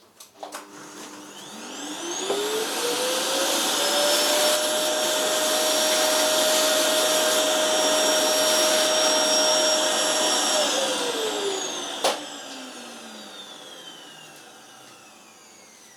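Vacuum cleaner sucking up milling dust through its hose. Its motor spins up with a rising whine, runs steady, then winds down with a falling whine after it is switched off. There is a single sharp knock as it winds down.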